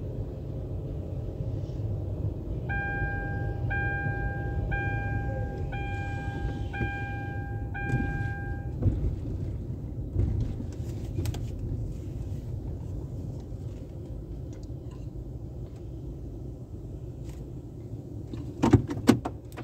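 Steady low rumble of a car driving slowly, heard from inside the cabin. A chime beeps six times, about once a second, from a few seconds in, and a few sharp knocks sound near the end.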